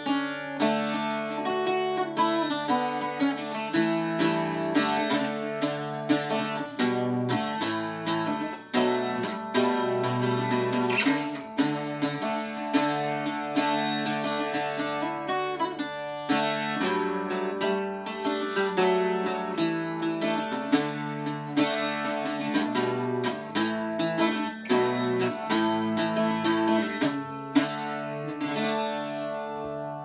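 A Cas Davey eight-string bouzouki played with a pick, improvising a chordal accompaniment of steady strummed and picked strokes over ringing paired strings.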